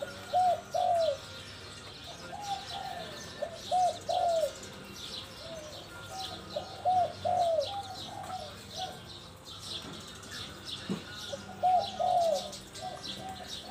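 Caged spotted dove cooing: repeated phrases of two to four low, arched coos, with pauses between phrases. Small birds chirp faintly and high in the background, and there is one sharp click about eleven seconds in.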